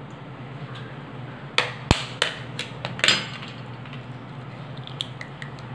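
Raw egg being cracked against a plastic bowl: a handful of sharp taps of shell on the bowl about two seconds in, then a few lighter clicks near the end.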